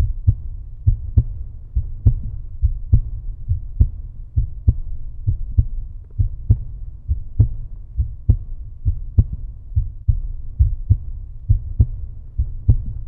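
Heartbeat-style sound effect: deep double thumps, about one pair a second, over a low steady rumble.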